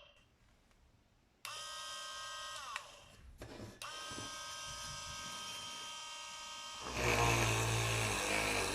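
Small electric motor of a homemade cordless mini drill switched on and off. A steady whine starts abruptly, drops in pitch as it winds down, then starts again and runs for about three seconds. A louder, rougher noise takes over near the end.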